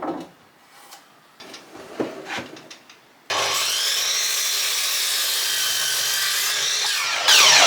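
A few light knocks of wood being handled, then an electric saw starts about three seconds in and runs steadily through a length of 4x2 timber; near the end it gets louder and its pitch falls.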